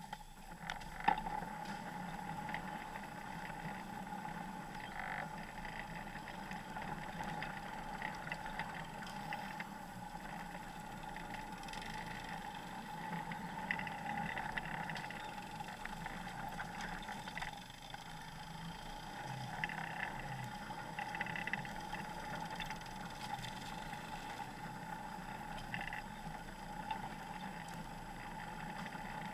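Off-road vehicle engine running steadily while driving slowly along a rough trail, with a steady whine over a low drone. Scattered knocks and rattles, the sharpest about a second in.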